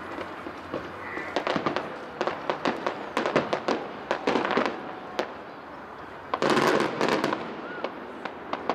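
Distant aerial fireworks: a run of sharp bangs and crackles, then a dense crackling volley lasting under a second about two-thirds of the way through.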